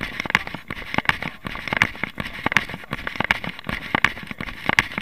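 Running footsteps on a dirt path, a steady stride of about three footfalls a second, picked up by a camera carried by the runner.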